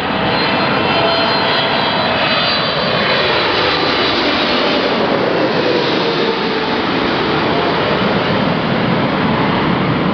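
Boeing 777-300ER's twin GE90-115B turbofans at approach power passing low overhead: a loud, steady jet roar with a high fan whine, the tones sliding down in pitch as the aircraft goes over.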